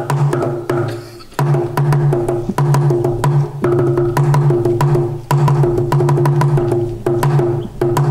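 Percussion music: a fast run of sharp wooden clicks over low, pulsing drum-like tones, growing fuller about a second and a half in.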